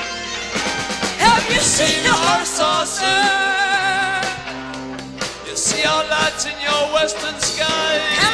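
Live rock band playing an instrumental passage, with a lead line that slides and wavers in pitch over the band.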